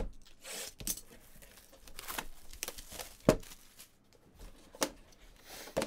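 Clear plastic shrink wrap being cut and torn off a cardboard trading-card box: crinkling and rustling, broken by several sharp taps and clicks as the box is handled, the loudest about three seconds in.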